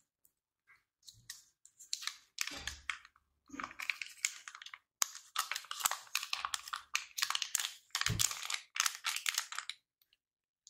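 Irregular crinkling and crunching with sharp clicks, in uneven runs with short pauses: food packaging and cookies being handled, as when preparing Oreos for Oreo balls.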